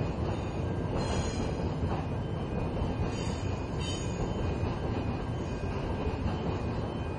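Grain train wagons rolling past, wheels rumbling steadily on the rails, with brief high-pitched wheel squeals about a second in and again around three to four seconds.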